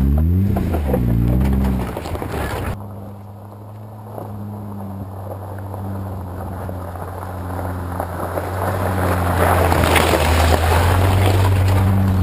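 Jeep Wrangler JK's engine revving up and down, then running steadily at low speed while the Jeep crawls off-road. The sound changes abruptly about three seconds in, and a rushing noise builds over the last few seconds.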